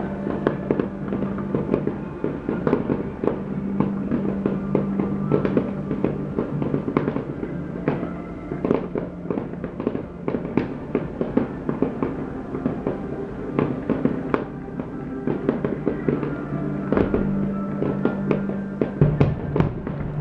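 Fireworks display: many shells bursting in quick, irregular succession, with bangs and crackles, over music with sustained notes.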